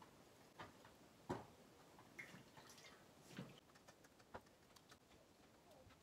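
Near silence: room tone with a handful of faint, scattered clicks and knocks.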